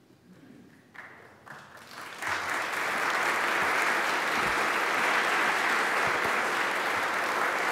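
Audience applauding, starting about two seconds in and going on steadily.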